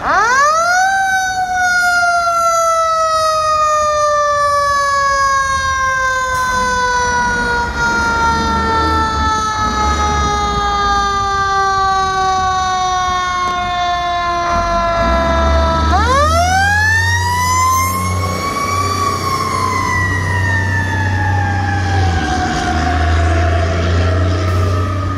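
Fire truck's mechanical siren winding up quickly, then coasting slowly down in pitch for about fifteen seconds; about sixteen seconds in it is wound up again to a higher pitch and coasts down once more. A low rumble runs underneath in the second half.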